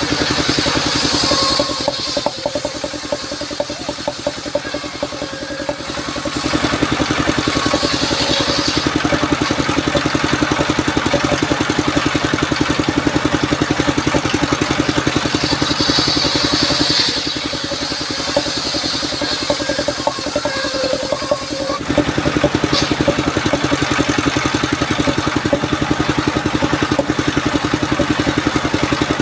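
Engine-driven mobile circular sawmill running, its blade ripping lengthwise through a sengon (albizia) log. The engine runs with a fast, even pulse, and the sound drops back twice for a few seconds before rising again.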